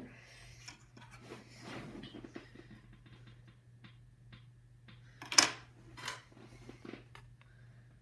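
Light clicks and rustling of RAM sticks being handled and sorted on a desk, with one sharp click about five and a half seconds in and a smaller one just after.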